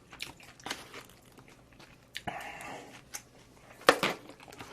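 Mouth-close eating sounds: chewing with scattered small clicks, a short rustle about two seconds in, and one louder sharp knock near the end.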